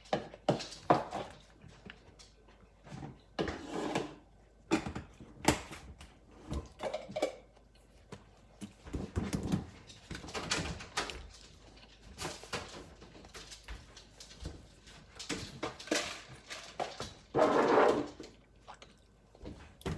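Kitchen work: scattered knocks, clicks and light clatter of vegetable slices and utensils being handled and set into a baking dish, with one louder, longer noise near the end.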